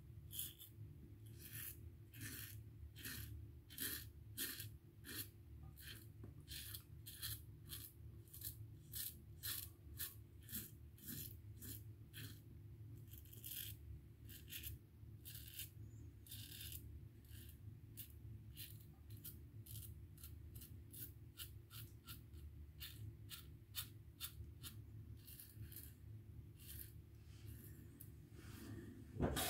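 Safety razor drawn through lathered stubble: a long run of short, quiet scraping strokes, a little over one a second.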